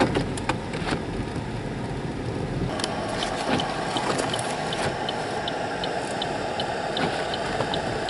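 Inside a car driving on a snow-covered road, with steady engine and road noise and a few knocks in the first second. From about three seconds in, the turn signal ticks about three times a second.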